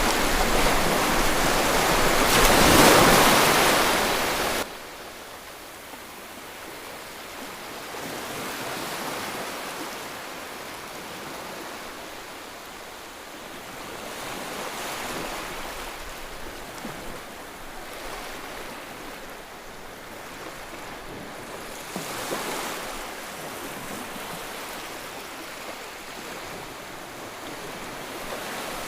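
Sea waves washing onto a beach, rising and falling every six or seven seconds. The sound is louder and rushing at the start and drops abruptly about five seconds in.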